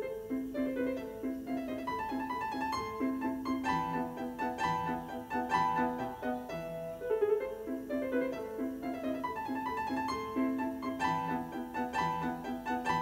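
Piano music playing back from a cassette on a Mitsubishi stereo cassette deck: quick notes in a repeating pattern.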